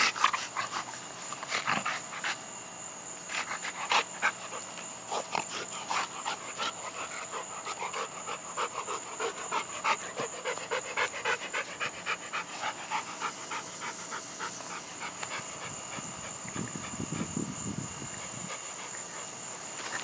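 A dog panting rapidly and rhythmically, out of breath from chasing a ball during fetch.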